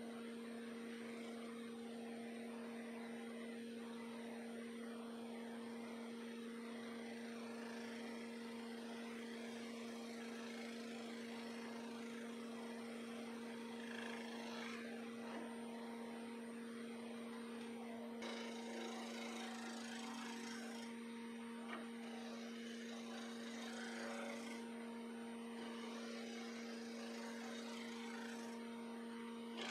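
Grizzly G0766 wood lathe running with a steady hum while a bowl gouge cuts a spinning cast-resin disc, a continuous rough scraping of the tool shaving off resin.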